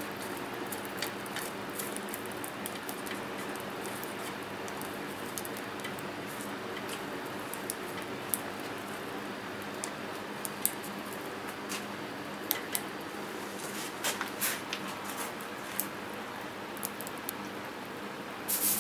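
Wood fire burning in a tin-can rocket stove fed with juniper sticks: a steady hiss with scattered faint crackles and ticks. Near the end a short louder scrape as a wooden spoon stirs the enamel pot on top.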